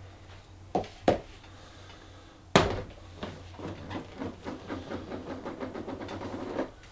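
Plastic golf discs and their packaging being handled: two light knocks about a second in, a sharper knock a little later, then a few seconds of quick, uneven rustling and crinkling.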